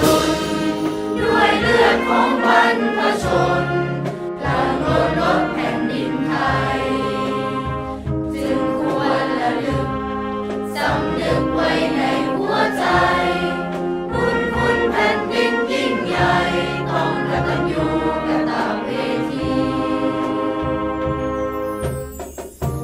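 A large choir of schoolchildren singing a song together, accompanied by a wind band with brass and drum.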